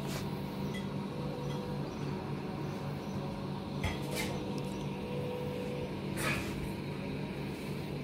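Open-air restaurant terrace ambience: a few short clinks of dishes and cutlery, about four and six seconds in, over a steady low hum.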